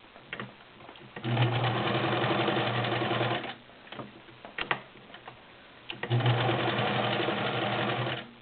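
Morse Apollo 6500 all-metal sewing machine running in two bursts of about two seconds each, stitching through ten layers of cotton-poly blend fabric. A few clicks sound in the pause between the bursts.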